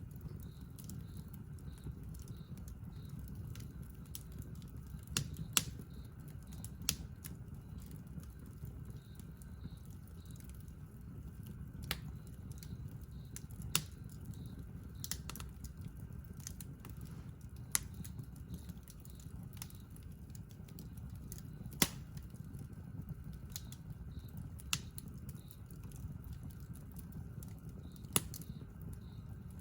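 Wood campfire crackling: sharp, irregular pops and snaps over a steady low rumble.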